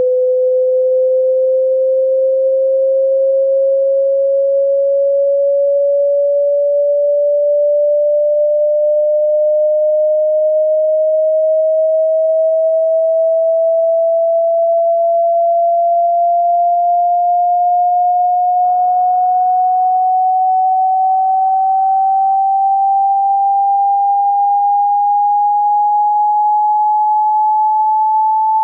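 A pure sine test tone from a hearing-test frequency sweep, rising slowly and evenly in pitch.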